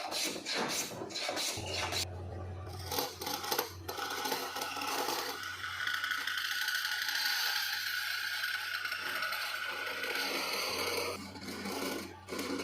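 Abrasive scraping on a workpiece: short repeated strokes at first, then a long steady scraping or grinding over a low machine hum, and a few short strokes again near the end.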